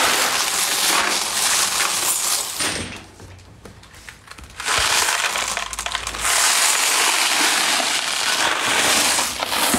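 A mass of small tumbled crystal stones clattering and grinding against each other as a tray of them is mixed by hand and topped up. The clatter comes in two long spells, with a quieter lull a little under three seconds in.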